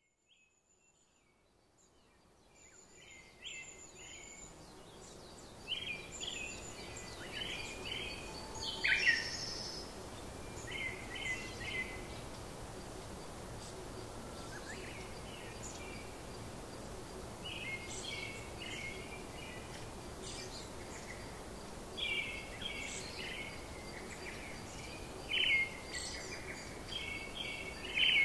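Small birds chirping and calling in short repeated phrases over a steady background hiss, fading in over the first few seconds.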